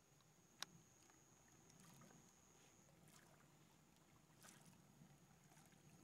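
Near silence: the sound track is muted, leaving only faint hiss and one faint click about half a second in.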